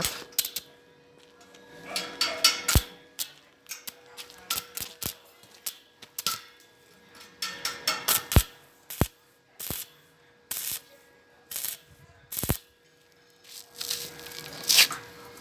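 Stick welding on a steel frame: short bursts of crackling arc noise, mixed with many sharp metallic clicks and knocks.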